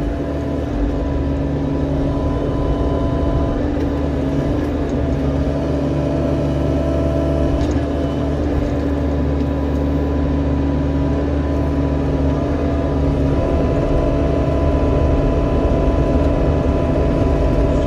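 Diesel engine of a compact construction machine running steadily under work, with a hydraulic whine over the engine rumble; it grows slightly louder in the second half.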